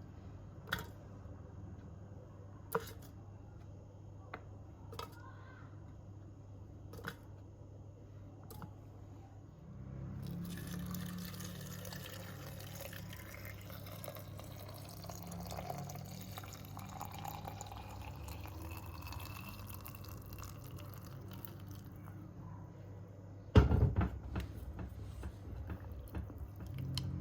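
A few light ticks, then liquid pouring into a container for about thirteen seconds, with a faint tone rising in pitch as it fills. A loud knock and clatter comes near the end.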